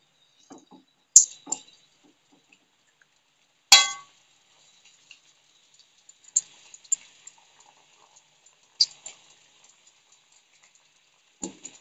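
Hot oil in an aluminium kadai sizzling with scattered crackles and pops as pastry puffs fry in it, starting about four seconds in. Before that come two sharp metallic clangs against the pan, about a second in and just before the sizzling starts, the second louder and ringing.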